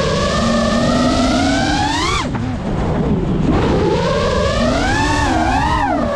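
Electric motors and propellers of a 5-inch FPV quadcopter whining, heard through its onboard GoPro. The pitch climbs with throttle, drops sharply about two seconds in, then rises and wavers again.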